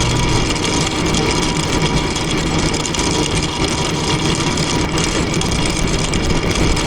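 Mini excavator's engine running steadily.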